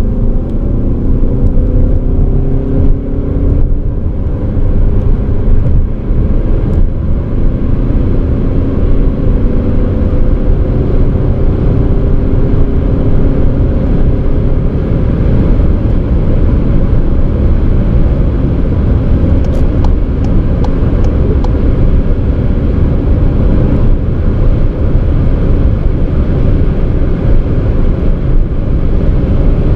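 Skoda Superb's 2.0 TDI four-cylinder turbodiesel under full-throttle acceleration, heard from inside the cabin. The engine note climbs in pitch early on, then is increasingly buried under steady wind and road noise as the car runs from about 80 to nearly 200 km/h.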